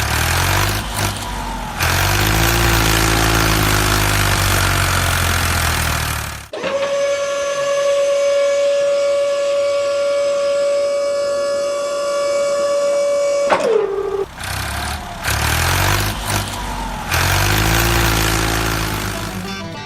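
Truck engine running with its revs rising and falling, interrupted by one long truck horn blast of about seven seconds that slides down in pitch as it cuts off, before the engine sound returns.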